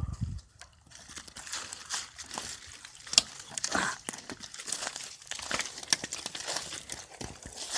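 Footsteps crunching through dry weeds and brush, with irregular rustling and crackling of stems and twigs brushing against clothing, beginning about a second in.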